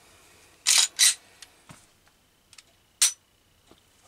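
Gen 3 Glock 19 slide racked back and let go, two sharp metallic clacks about a second in, then a dry-fire trigger pull ending in one sharp click about two seconds later. The click is the hard, 'clicky' stop at the end of the trigger pull that the owner is trying to diagnose.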